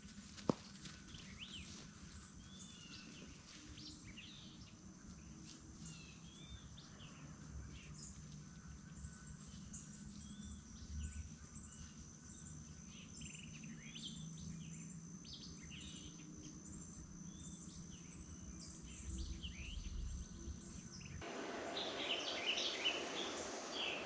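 Wild birds chirping and calling in short, repeated notes over a faint, steady, high-pitched insect drone. Near the end a louder rustling noise comes in.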